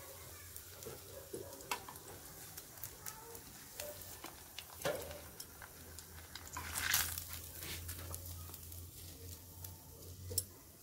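Mulberry-leaf and egg fritters deep-frying in a wok of oil: a faint, steady sizzle with fine crackling. A couple of louder clatters come around the middle, as a ladle and chopsticks work in the wok.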